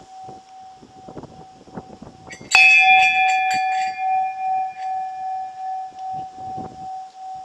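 A medium-sized, sand-cast solid brass bell, rung by its clapper. The bell is already ringing from an earlier stroke when a fresh strike lands about two and a half seconds in, bright and loud. It then rings on in one clear, steady tone that slowly fades and wavers in loudness about twice a second.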